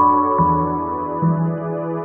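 Background music: a soft, slow keyboard piece with a sustained high note over bass notes that change every second or so.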